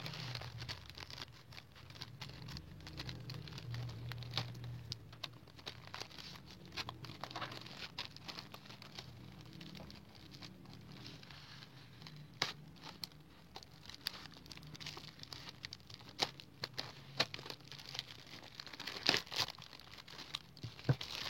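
A parcel of yarn being unboxed by hand: packaging crinkling and tearing, with scattered small clicks and taps as it is handled.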